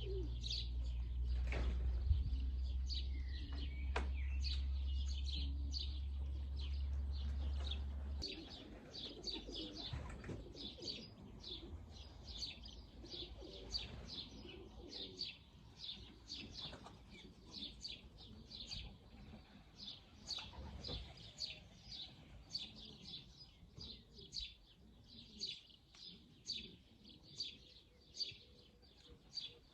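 Small birds chirping over and over in short high notes, several a second. A low steady hum runs under the first eight seconds and then stops.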